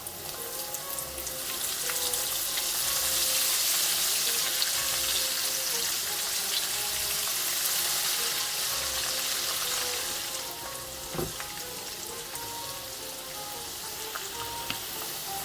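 Food frying in hot oil: a steady sizzle with scattered crackles, growing louder about two seconds in and easing off around ten seconds in. Soft background music plays underneath.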